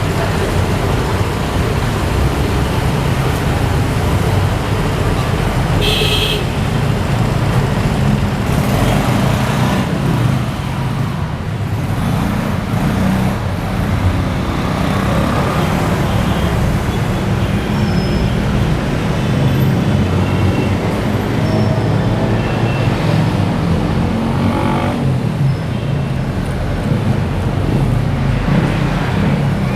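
Steady street traffic noise from passing motor vehicles, with a brief high toot about six seconds in.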